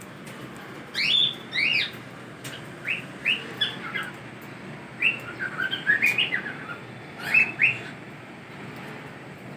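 Cockatiels giving short, rising chirps and whistles, one or two at a time and in a quick cluster midway, over a steady low background noise.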